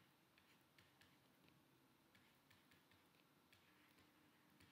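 Near silence with faint, irregular ticks of a stylus tapping on a tablet screen as an equation is handwritten.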